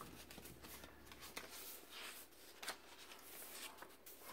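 Faint rustling of paper sheets and book pages being handled and shuffled through by hand, with a few brief crisp rustles.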